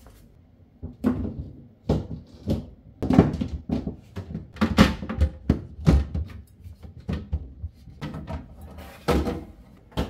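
Refrigerator shelves being put back in place: a string of irregular knocks, clicks and thunks, starting about a second in, as metal-framed shelves slide onto their rails and seat.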